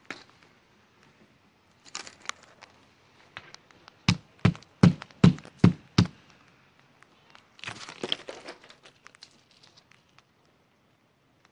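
Clear ice glaze on a car's windshield and wiper cowl being cracked and picked off by hand: crackling, then six sharp knocks about two and a half a second, then more crackling and crunching near 8 s.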